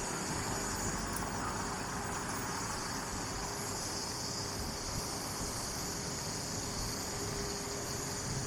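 A steady, high-pitched insect chorus drones without a break, over a low, even rumble of traffic.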